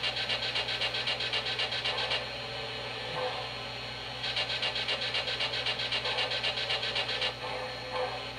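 Sound system of an MTH RailKing Pennsylvania Railroad M1a O-gauge steam locomotive (Proto-Sound 2) playing standing-engine startup sounds. A rapid pulsing hiss of about four to five beats a second comes in two runs, one ending about two seconds in and the other from about four to seven seconds in, over a steady low hum.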